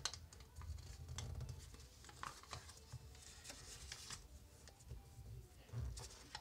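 A square of colour paper being folded and creased by hand: faint, scattered rustles and crisp little crackles of the paper, with a few soft taps against the desk.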